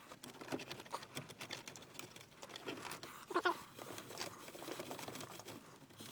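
Faint rustling, scraping and scattered light clicks of cables and plastic trim being handled as RCA leads are pushed in behind a car stereo in the dashboard.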